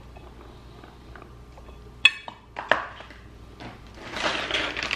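Kitchen handling sounds on a countertop: two sharp clinks a little after two seconds in, as a plastic container and dishes are set down, then a rustle near the end as a packet is picked up.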